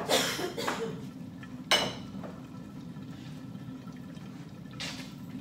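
Short splashes of liquid over a steady low hum, with one sharp knock a little under two seconds in.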